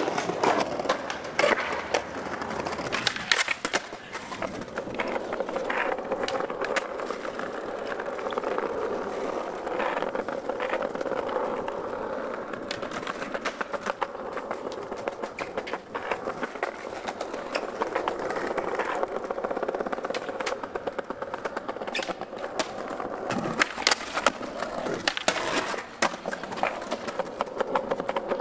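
Skateboard wheels rolling over stone paving slabs with a steady rumble, broken again and again by sharp clacks and knocks of the board.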